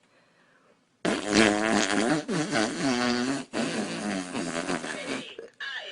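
A long, loud fart starting about a second in and lasting about four seconds, its pitch wavering up and down, with a brief break partway through.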